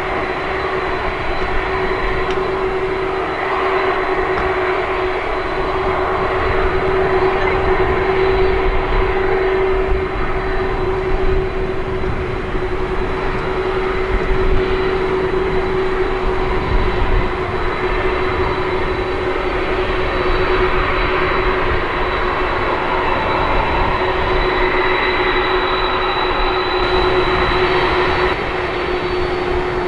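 Boeing 747-400 freighter's jet engines running at taxi power: a steady rumble with a constant hum and a thin high whine. The level drops a little near the end.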